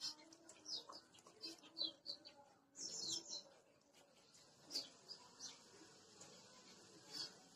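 Faint chirping of small birds, several short high falling calls and a quick cluster about three seconds in. A Kanni dog eats rice from a steel bucket, with a few sharp clicks of chewing about five and seven seconds in.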